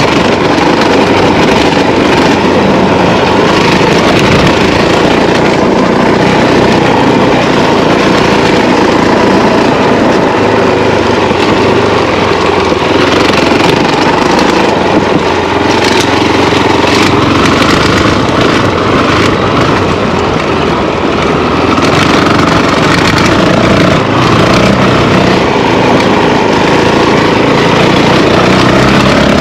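Honda CRF450L's single-cylinder four-stroke engine running steadily as the dual-sport bike rides along a dirt track at around 35 km/h.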